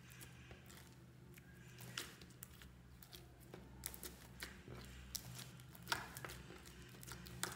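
Hands kneading and pressing a mound of slime mixed with small foam beads: quiet squishing with irregular sharp little pops and crackles, the loudest about two seconds and six seconds in.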